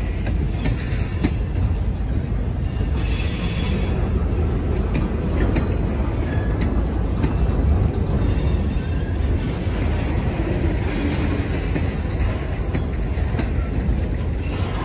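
Freight train boxcars rolling past close by: a steady rumble of steel wheels on the rails with light clicks over the rail joints, and a brief high wheel squeal about three seconds in.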